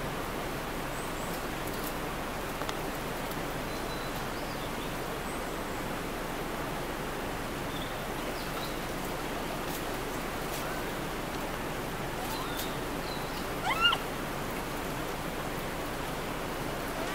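A Japanese macaque gives one short, rising, pitched coo call about fourteen seconds in, over a steady rushing hiss.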